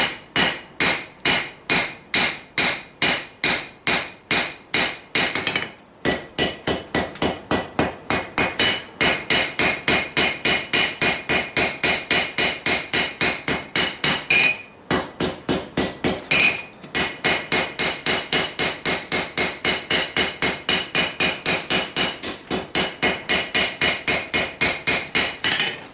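A hand hammer striking steel on a Vulcan 90-pound anvil in a steady run of blows, about three a second, each with a bright metallic ring. The run breaks off briefly about six seconds in and twice near the middle, then carries on.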